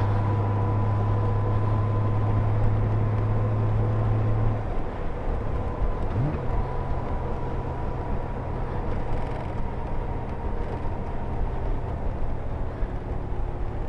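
Honda Goldwing GL1500 flat-six engine running steadily under way, with wind and road noise. About four and a half seconds in the engine note drops, then a brief rise in pitch about six seconds in settles into a new steady note.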